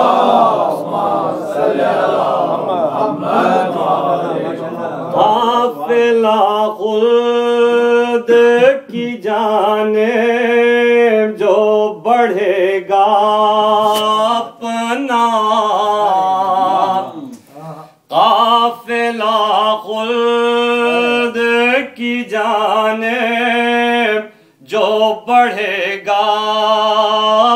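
Man chanting an Urdu noha (devotional lament) in a melodic recitation with long held notes. For the first few seconds several voices chant together, then a single voice carries on alone, pausing briefly about 18 and 24 seconds in.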